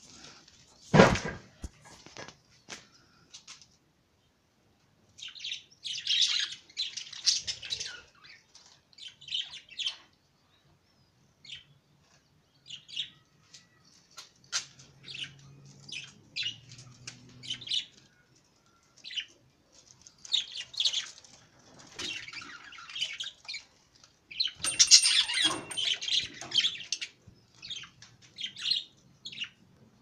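Budgerigars chirping and chattering in bursts of quick, high calls, busiest around six seconds in and again around twenty-five seconds in. A single sharp knock about a second in.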